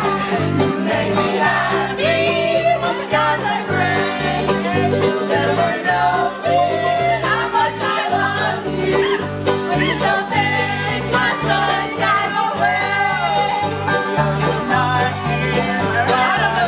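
Live bluegrass band playing an upbeat tune, with banjo, mandolins and acoustic guitar over a bass line that steps note to note on the beat, and women's voices singing along.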